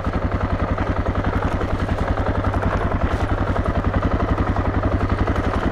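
Suzuki DR650's single-cylinder four-stroke engine running steadily as the motorcycle is ridden, its exhaust coming through as an even, rapid pulse that holds the same pace throughout.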